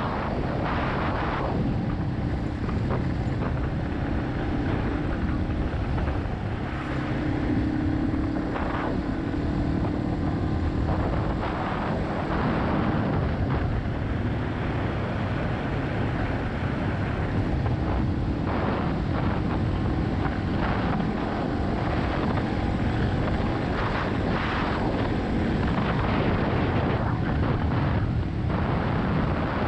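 Yamaha XT250's single-cylinder engine running under way at a steady pace, with wind noise over the microphone. The engine note rises slightly about seven seconds in.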